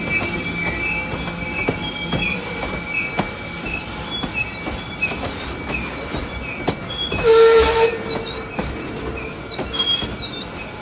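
G-scale model freight cars rolling around a curve on garden-railway track, their wheels squealing steadily against the rail and clicking over the track, with one louder half-second screech about seven seconds in.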